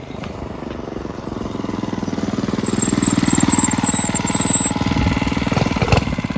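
Mini bike's small engine running, with a fast, even firing beat that grows louder over the first three seconds and then holds steady. There is a sharp knock near the end.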